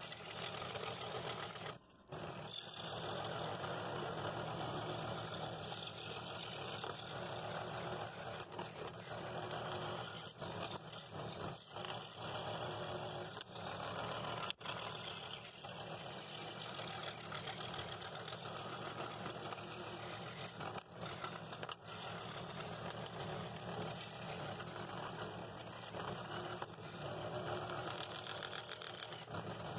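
Scroll saw running steadily, its reciprocating blade cutting through a wooden board along a pattern line. The sound drops out briefly about two seconds in.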